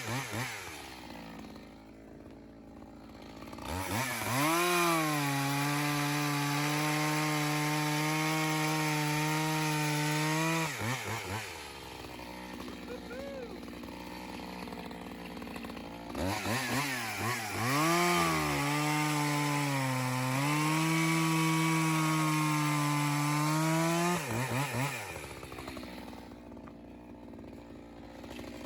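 Echo CS-620 two-stroke chainsaw bucking ash logs. It idles, revs up about four seconds in and holds a steady high pitch through a cut of about six seconds, then drops back to idle. It revs up again for a second cut of about eight seconds, drops to idle and starts to rev once more at the end.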